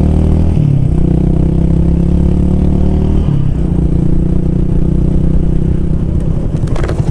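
Yamaha BanBan 200's air-cooled single-cylinder engine running under way on the road, its note dropping off and settling at a new pitch twice, about half a second in and about three seconds in, as the gears change.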